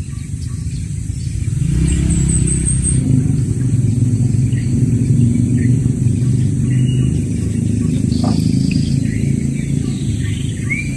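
A small boat engine running steadily, growing louder over the first couple of seconds and then holding.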